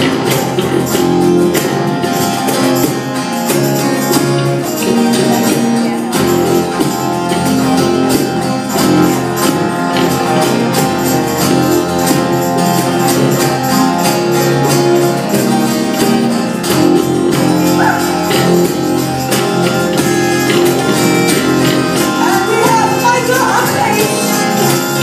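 A live band playing an upbeat praise song with a steady beat, with tambourine and guitar, and some singing near the end.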